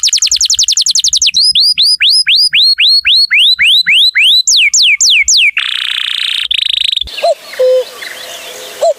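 Bird song in varied whistled phrases: a fast run of falling notes, then slower swooping whistles at about three a second, a short buzzy stretch, and from about seven seconds in a lower repeated call.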